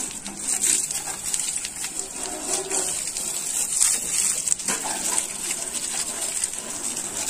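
Hose jet of water spraying onto a tractor's metal bodywork and tyres and splashing on the wet ground: a steady hiss of spray.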